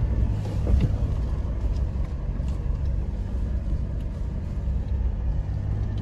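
Car engine running steadily under load with rumbling from the tyres on a rough dirt track, heard from inside the cabin while climbing a steep hill.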